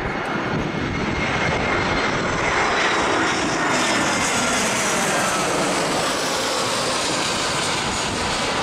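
Boeing C-17A Globemaster III's four turbofan jet engines running on the ground, a steady rushing jet noise with a faint high whine over it.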